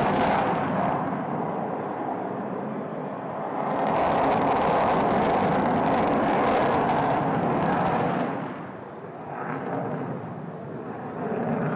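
Fighter jet engine noise, a loud rushing roar that eases after the first second, swells again from about 4 to 8 seconds in, and then falls away.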